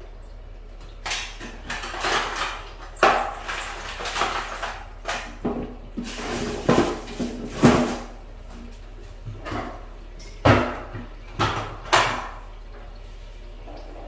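Hand tools clattering and clinking as they are picked through in a plastic toolbox and tray: irregular knocks and rattles, a few sharper ones standing out.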